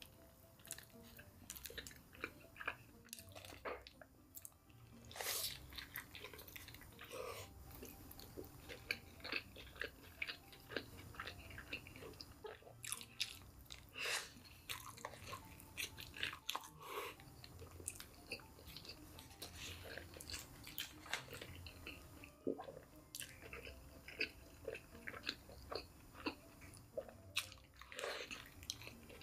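Close-up chewing of crispy KFC fried chicken: frequent sharp crunches of the breaded coating between steady wet chewing.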